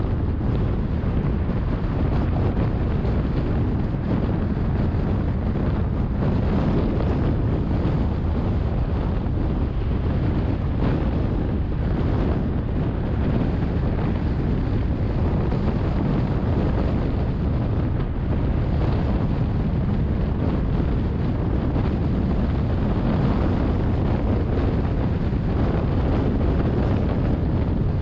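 Steady road noise from a car cruising at speed: a low, even rumble of tyres and engine with wind noise over it, unchanging throughout.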